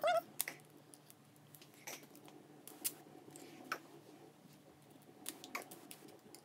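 Plastic wrapping on a LOL Surprise toy ball crinkling as it is peeled off by hand, in scattered small clicks and rustles. A short high squeak comes at the very start.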